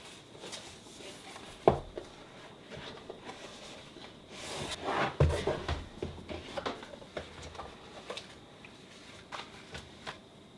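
Handling sounds of small objects: scattered clicks and light knocks, one sharp knock about two seconds in, and a louder rustle around the middle.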